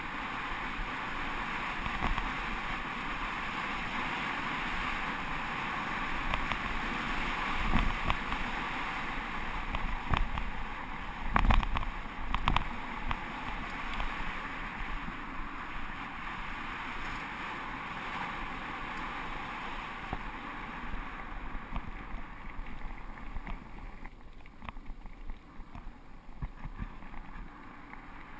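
Wind rushing over the microphone of a bike-mounted GoPro and a bicycle rattling over a gravel road on a fast descent, with a few louder knocks from bumps around the middle. The rush eases over the last several seconds.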